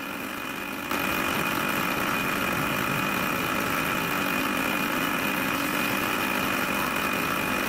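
Drill press running, its bit cutting through the steel sword handle, with a steady high whine; it gets louder about a second in and then holds even.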